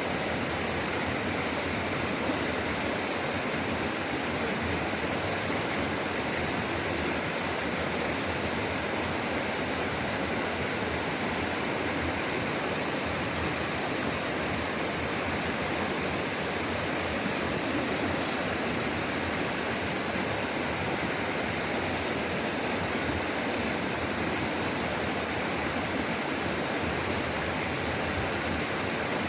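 Two-tier slide waterfall, with mountain stream water pouring down two steps of sloping rock: a steady, unbroken rush of water.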